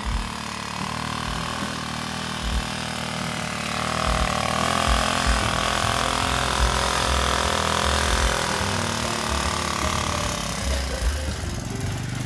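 Single-cylinder diesel engine of a homemade mini tractor running steadily as the machine is driven. It grows louder about four seconds in.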